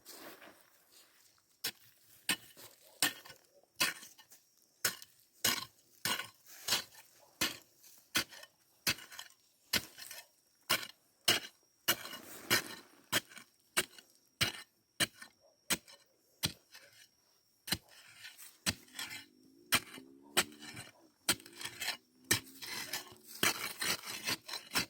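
A metal digging tool striking hard, stony ground again and again, about one to two sharp chinking blows a second.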